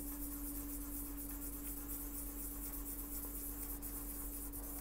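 Soft scratchy rubbing of a small metal knife pivot washer being lapped on worn 400-grit sandpaper, flattening its face to take out an uneven wear spot. A steady low hum runs underneath.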